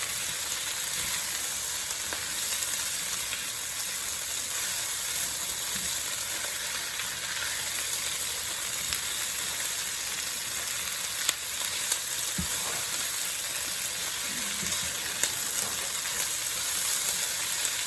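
Chicken pieces, sliced onion and red and green bell peppers sizzling steadily in oil in a frying pan over high heat, with a few light clicks of stirring.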